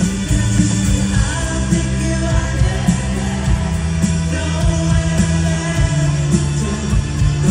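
Live rock band playing through an arena sound system: a lead singer over electric guitar, held bass notes and drums.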